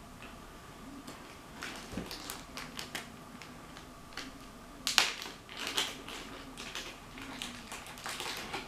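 Small plastic toy figurines being handled: irregular crackling and clicks in clusters, the loudest about five seconds in.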